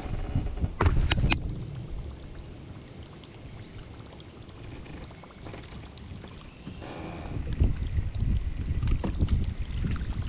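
A kayak moving through the water: water sloshing against the hull over a low rumble, with a cluster of sharp clicks and knocks about a second in and a few more near the end.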